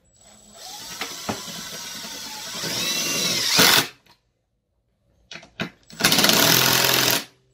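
Cordless impact driver sinking a lag bolt into chipboard. It runs for about four seconds, growing louder as the bolt bites, stops, gives two short blips, then a second burst of rapid hammering near the end to seat the bolt.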